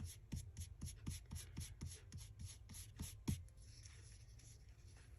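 Quick back-and-forth rubbing strokes on paper, about four a second, for roughly three seconds, then fainter.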